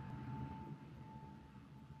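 Faint low rumble with a thin, steady high tone running through it, heard over the Delta IV Heavy's onboard camera feed during ascent.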